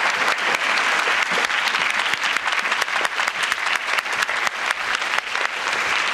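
Audience applauding steadily: a dense mass of hand claps that keeps on without a break.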